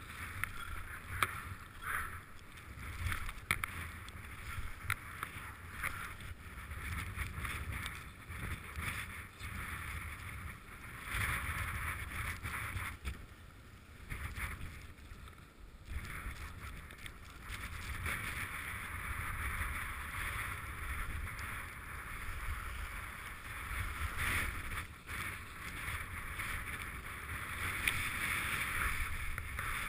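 Skis sliding and scraping over groomed, packed snow on a downhill run, with wind rushing over the microphone. The swishing rises and falls all through and eases for a few seconds about halfway.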